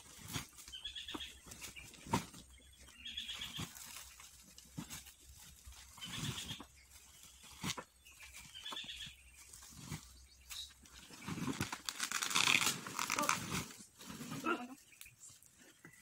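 Calls of a farm animal, short pulsed cries every couple of seconds with a longer, louder one about three-quarters of the way through, and a few sharp thuds from sacks being handled on a cart.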